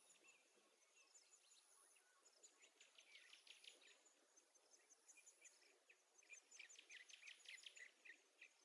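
Near silence with faint, rapid high-pitched chirping in two short stretches, one about two to four seconds in and another near the end.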